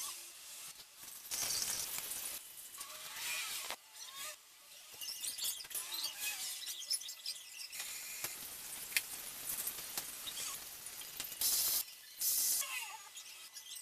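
Water from a garden hose running and splashing into a glass aquarium during a water change, coming and going in uneven stretches, with a few short squeaky sounds.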